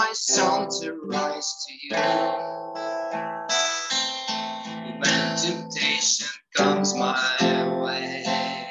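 Acoustic guitar strummed in chords, accompanying a slow worship song.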